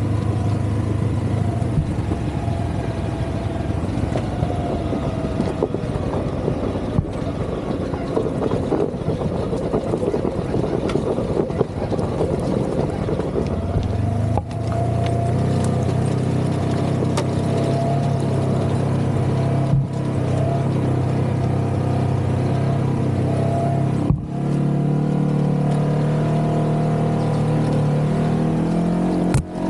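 Polaris RZR Trail S 1000 side-by-side's 999 cc twin-cylinder engine running at trail speed, rougher over the first half and holding a steadier note after about halfway. The engine sound dips briefly a few times as the throttle eases.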